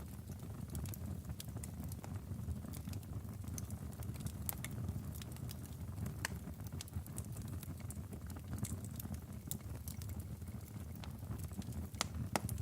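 Logs burning in a fireplace: irregular sharp crackles and pops over a steady low rumble of flame, with one of the louder pops near the end.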